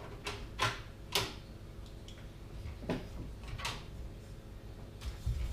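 Plastic clips of a computer case's front panel clicking and knocking as they are pushed free from inside, about half a dozen irregular sharp clicks, the loudest about a second in.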